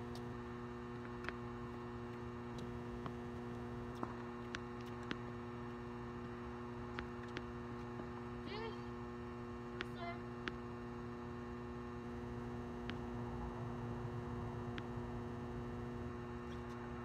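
Steady electrical mains hum, the buzz of the floodlights, with a few faint scattered ticks.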